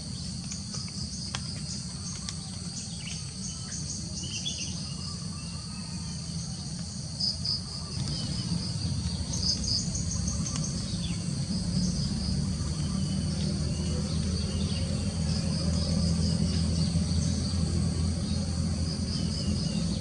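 A steady, shrill chorus of insects, pulsing in places, with scattered short bird chirps. A low droning hum comes in about halfway and grows louder toward the end.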